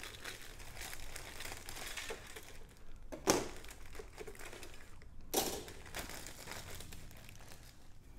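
Clear plastic bag crinkling as plastic model-kit sprues are handled and pulled from it, with two louder crackles about three and five and a half seconds in.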